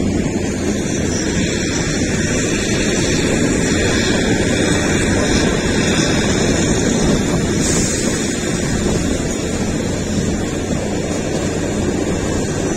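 Steady rumble of the narrow-gauge Kalka–Shimla toy train on the move, heard from on board, with wind buffeting the microphone.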